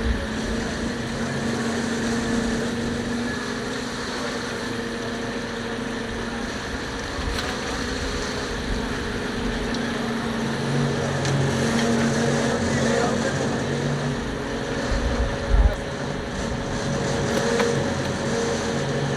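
A fishing boat's engine running steadily with an even hum, and one short thump about three-quarters of the way through.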